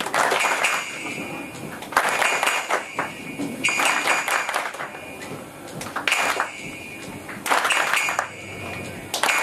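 Live drum-show percussion in a hall: a loud crash about every one and a half to two seconds, each carrying a shrill whistle-like tone, with quieter noise in between.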